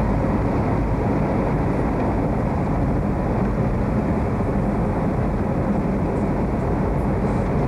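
Steady driving noise heard from inside a moving car: engine running at an even speed together with tyre and road noise.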